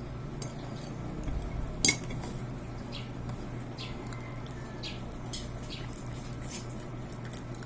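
Light clicks and clinks of cutlery and dishes during eating, the sharpest about two seconds in, over a steady low hum.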